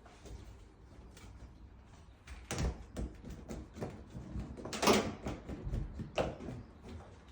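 A string of knocks, bumps and clicks from appliances and fittings being handled during a house move, the loudest knock about five seconds in.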